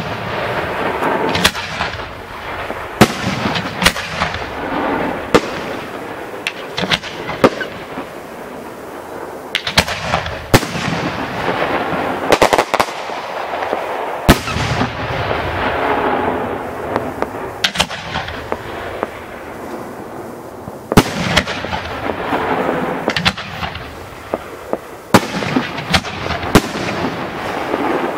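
Italian cylinder aerial firework shells bursting one after another: sharp bangs about once a second, some in quick pairs, over a rush of noise that swells and fades between them.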